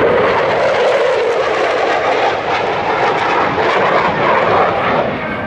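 Mitsubishi F-2 fighter's single F110 turbofan making loud, steady jet noise as the jet makes a display pass, easing off slightly near the end.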